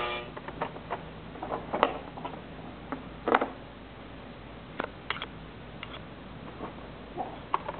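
Irregular plastic clicks and taps as a baby handles the toys on an Exersaucer's tray, about a dozen sharp knocks with the loudest about three seconds in.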